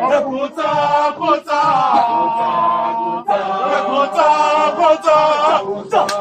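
A group of voices singing a chant together in long held phrases, with short breaks between them.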